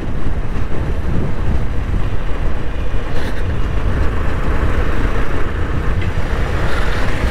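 Motorcycle ride recorded on a bike-mounted action camera: a steady low rumble of engine, tyre and wind noise as the bike rides over a rough, broken road surface.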